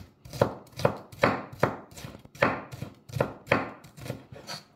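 Chef's knife chopping red pepper into small dice on a wooden cutting board: about a dozen sharp, evenly paced strokes, roughly two to three a second, of the blade striking the board.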